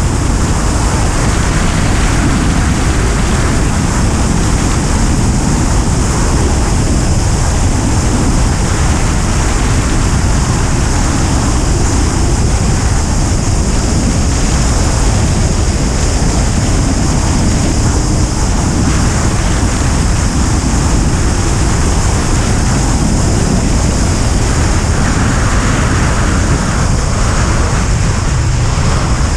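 Steady, loud rush of airflow over a microphone mounted on the wing of a Duo Discus glider in flight, heaviest in the low end.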